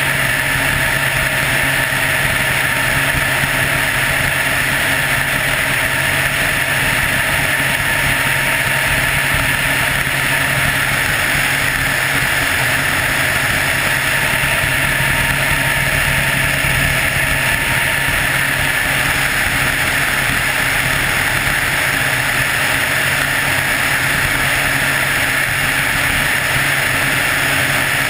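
Helicopter in flight: its turbine engine and rotors give a loud, steady drone with a constant hum, unchanging throughout.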